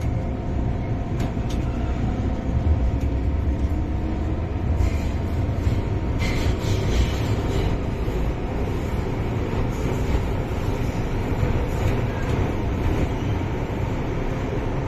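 MTR Island Line M-Train heard from inside the motor car while running. There is a steady low rumble of wheels on rail and a faint, even traction-motor whine, which in this car is unusually doubled.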